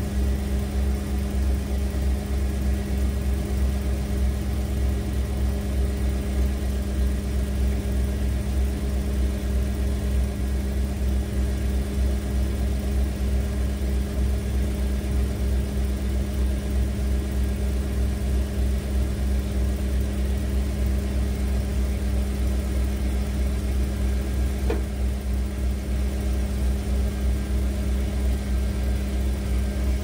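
1991 Ford Econoline E350 van engine idling steadily, heard from underneath the van during a test run after its fuel tank selector valve was freed up.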